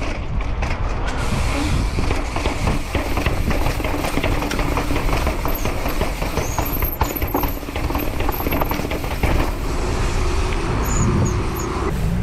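Mountain bike rattling down stone stairs: a rapid, irregular run of knocks as the tyres and frame hit each step, over a steady rushing noise.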